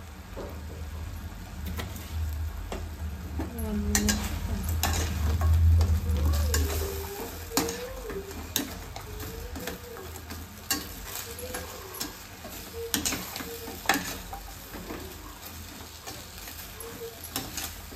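A steel spoon stirring and scraping fried cauliflower florets in a steel kadai, clinking against the pan again and again over a steady sizzle of frying.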